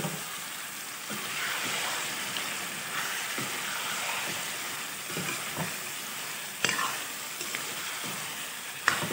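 Mutton and potato curry sizzling in a pan as a spatula stirs it, with a steady frying hiss. There are a few sharp knocks of the spatula against the pan: at the start, about two-thirds of the way in, and near the end.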